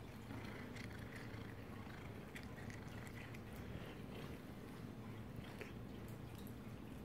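Cats eating treats from a hand: faint scattered little clicks and smacks of chewing and licking over a low steady hum.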